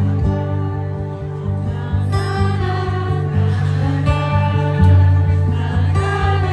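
Live acoustic music: an acoustic guitar playing the song's intro over sustained low bass notes.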